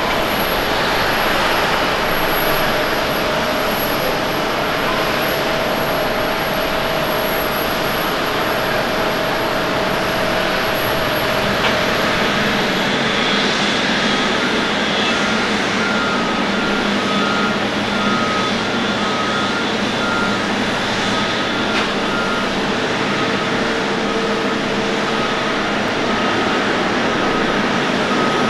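Steady jet-engine noise: a Boeing 787's engines idling while a tug tows it, with a steady whine. After a cut about 13 seconds in, an Airbus A350 is taxiing, and a ground vehicle's reversing beeper sounds over and over.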